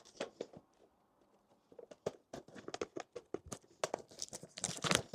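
Handling of a cardboard blind-box package: scattered light clicks, taps and rustles, sparse at first and coming more often from about two seconds in.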